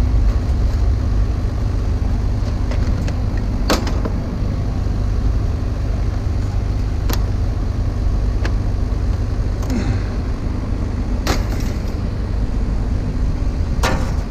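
A steady low rumble with a faint steady hum, broken by four sharp clicks or clinks spread through.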